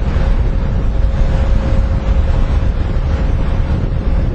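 Wind buffeting the microphone: a loud, continuous low rumble, with a faint steady hum underneath.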